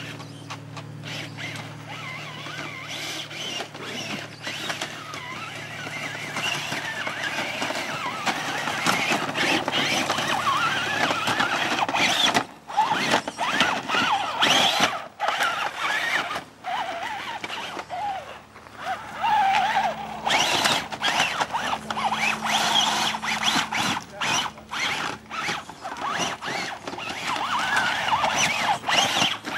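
Electric motors and geared drivetrains of radio-controlled trail trucks whining, the pitch wavering up and down with the throttle. A steady low hum runs under it for the first ten seconds or so.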